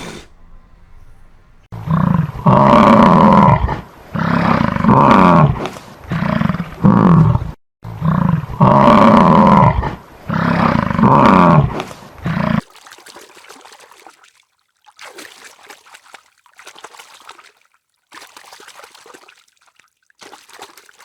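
A large farm animal calling loudly in a run of drawn-out pitched calls, each one to two seconds long, stopping about twelve seconds in; only faint, scattered rustling or splashing noises follow.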